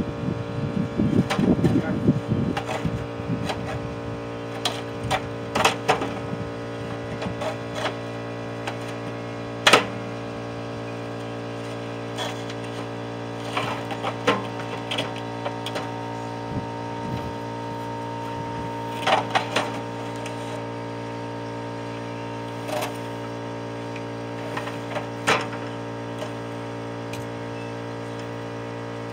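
Scattered metallic clinks and knocks from scrap boiler parts being handled and taken apart, with denser rattling in the first few seconds and the sharpest knock about ten seconds in, over a steady hum.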